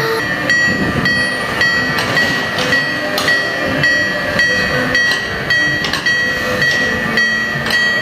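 Miniature Japanese railroad crossing signal ringing its electronic 'kan-kan' bell, an even ding at about two strokes a second, warning that the mini train is crossing.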